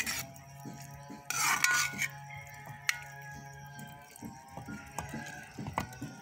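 Background music over a metal spatula scraping and clinking against a wok as meat is stir-fried, with a louder half-second rush of noise about a second and a half in.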